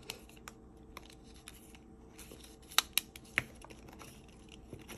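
Thin metal of folded tuna-can lids clicking and crinkling as fingers press the folds tighter: scattered small ticks, with a few sharper clicks about three seconds in.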